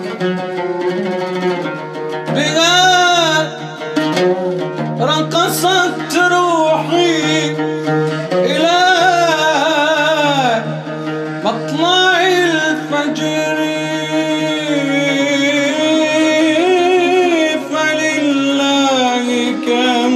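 Arabic nasheed music: long, ornamented vocal phrases that bend up and down in pitch over a steady low drone.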